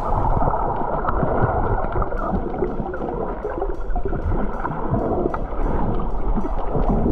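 Muffled water noise heard through a waterproof camera housing: a steady rushing and gurgling with faint scattered clicks.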